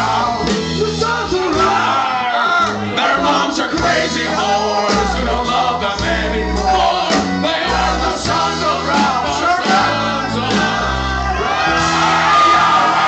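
Live rock band playing, with several men singing and shouting into microphones over electric guitars and bass guitar, heard in the echo of a large room.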